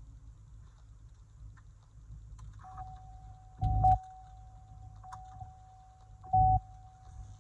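2017 Cadillac CTS-V powering up with the ignition on, before the engine starts: a steady high electric whine begins a few seconds in and holds, and two short low thumps come about two and a half seconds apart.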